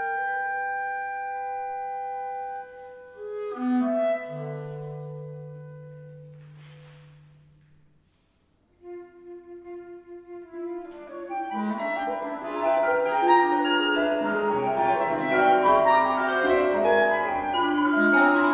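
Chamber ensemble of flute, clarinet, harp, piano and vibraphone playing contemporary music. Held tones and a low sustained note die away to a brief near silence about eight seconds in. The ensemble then re-enters and builds into a denser, louder texture of many overlapping notes.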